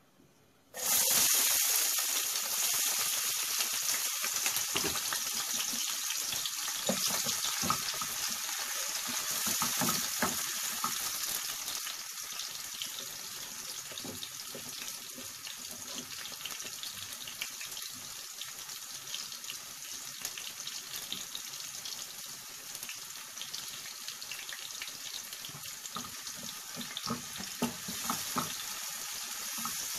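Chopped onion and green chillies frying in hot oil in a nonstick frying pan: a sizzle starts suddenly about a second in, loudest at first, then settles gradually to a steady crackling fry.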